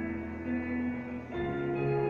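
Large mixed choir performing slow music in held chords, moving to a new chord about one and a half seconds in.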